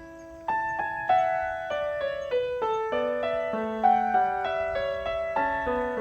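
Background music: a gentle solo piano melody of single notes, with a short pause about half a second in.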